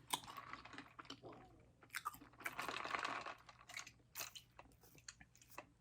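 Close-miked chewing of spaghetti and garlic bread: soft wet mouth noise with scattered sharp clicks, densest around the middle.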